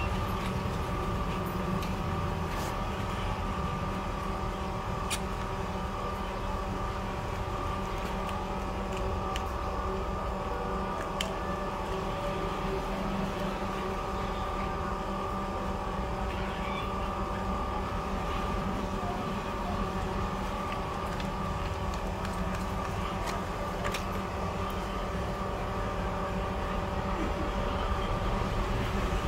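Steady machine hum holding several fixed tones, with a few light clicks, one about three seconds in and one about five seconds in.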